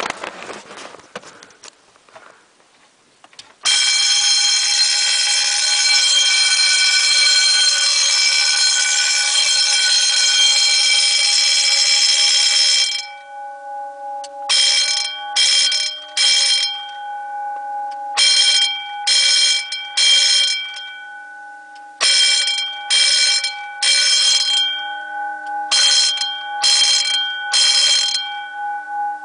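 Wheelock electric fire-alarm bells, a 6-inch and a 10-inch, ringing loudly after a few seconds of handling noise. About four seconds in they ring continuously; from about thirteen seconds in the ringing comes in groups of three bursts repeating every few seconds, with a steady ringing tone underneath.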